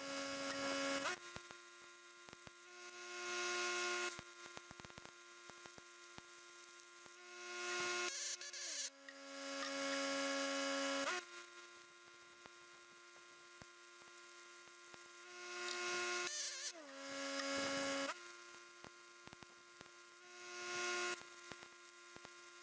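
Stick (arc) welding on heavy steel: the arc's hissing crackle swells and stops in several runs of one to three seconds, over the steady hum of the running welding machine, whose pitch dips briefly a few times.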